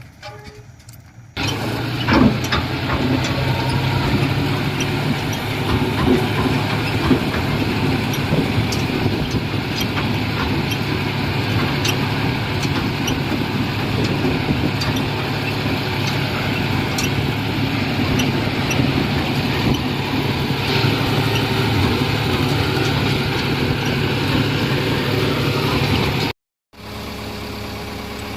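Heavy diesel engine running steadily under load, with scattered knocks and clanks over it. It starts abruptly about a second in, cuts out briefly near the end, and resumes as a steadier idle.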